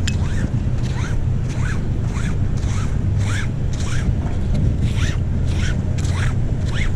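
Magnet-fishing rope hauled hand over hand through rubber-palmed work gloves: a short rasping zip with each pull, about two to three a second, over a steady low rumble.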